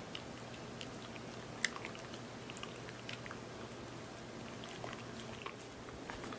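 Shiba Inu eating soft sweet potato pudding: small, scattered wet chewing clicks, with one sharper click about one and a half seconds in.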